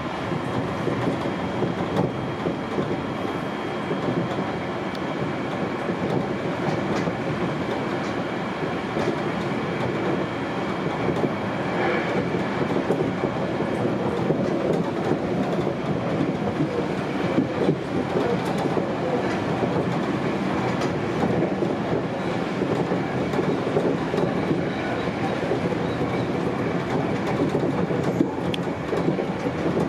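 Sanyo 5000 series electric train running at speed, heard from behind the cab. It is a steady rumble of wheels on rail with occasional rail-joint clicks and a faint steady high whine.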